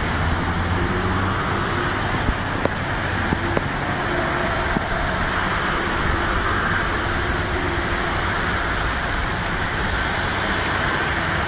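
Cars driving slowly through a flooded street, their engines running under a steady wash of water noise as the wheels push through deep floodwater. A few faint clicks come about two to four seconds in.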